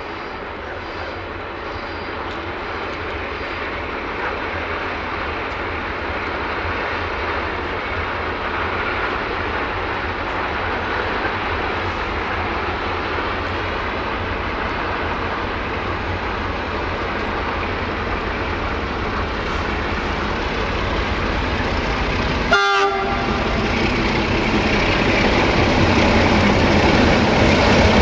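A freight train hauled by two Electroputere LDE2100 (CFR Class 60) diesel-electric locomotives with Sulzer 12LDA28 engines approaches, its engine drone and rail noise growing steadily louder. About three-quarters of the way through, its horn gives a very short toot.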